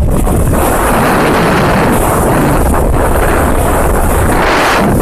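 Speedboat running fast: wind buffeting the microphone and rushing water from the wake, over the low rumble of the boat's engine.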